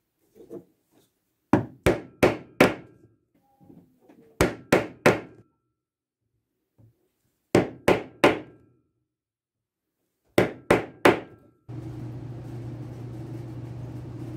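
A metal basket-weave stamp struck into leather with a mallet, in four quick groups of sharp strikes (four, then three, three and three), with a few soft taps while the stamp is set in place. Near the end the strikes give way to a steady low hum.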